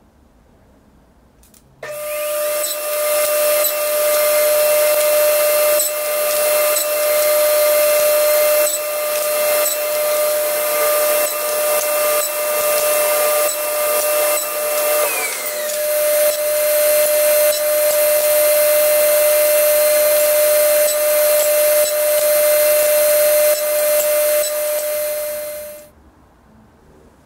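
Table saw running steadily while crosscutting walnut, a loud hiss with a steady tone through it. It starts abruptly about two seconds in and cuts off near the end.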